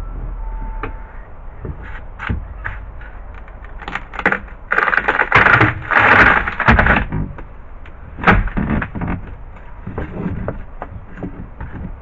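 Pry bar working a boat floorboard loose: a run of knocks and cracks, with loud scraping and splitting from about five to seven seconds in and a sharp knock a little after eight seconds.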